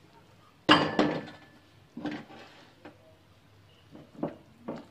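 A metal ladle knocking and scraping against a large aluminium soup pot as soup is ladled out: one sharp knock with a brief ring under a second in, then several softer clunks.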